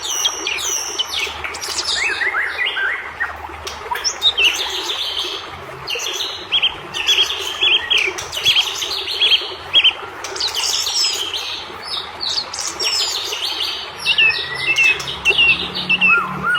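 White-rumped shama singing a fired-up song: rapid, varied runs of short chirps, trills and whistled notes without a break, over a steady background hiss.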